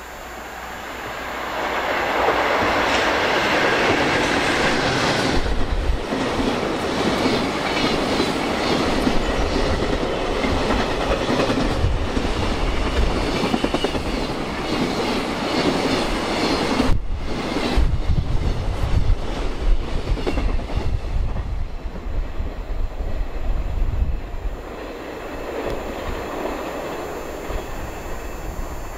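ED76 electric locomotive and its long string of container flat wagons passing through a station, wheels clattering over the rail joints. The sound builds about two seconds in, holds loud with a momentary break about two-thirds through, and eases off near the end as the last wagon moves away.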